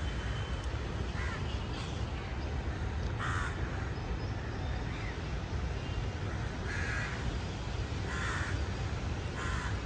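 Crows cawing: about six short, separate caws a second or two apart, over a steady low rumble.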